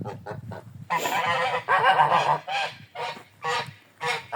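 Two large domestic geese honking: a quick run of short calls, then longer harsh honks about a second in, then more short honks.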